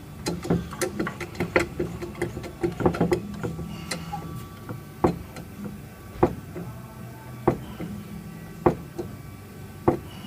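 Metal clicks and knocks from frame-straightening tool work on a vehicle frame rail: a quick flurry of clicks, then single sharp knocks about every second and a quarter, over a low steady hum.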